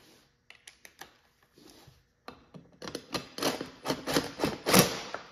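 Cordless driver run in short bursts to tighten a hose clamp on a rubber intake coupler. Its rapid clattering starts about two seconds in and peaks near the end, after a few light clicks of handling.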